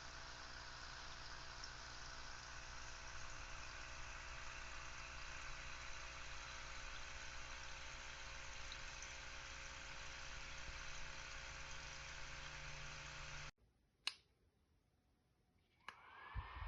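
Small USB desk fan running with a faint, steady whir and hum, cutting off abruptly about 13 seconds in; two short clicks follow in the near silence.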